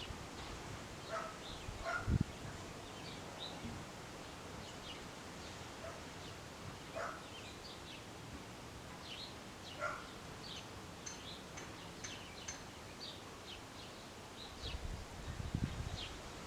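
Outdoor ambience of small birds chirping and twittering, with wind gusting against the microphone as a low rumble, briefly about two seconds in and building near the end.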